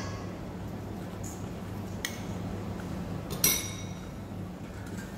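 A stainless steel mixing bowl is knocked and gives one clink that rings briefly, about three and a half seconds in, after a lighter tap about two seconds in. A steady low hum runs underneath.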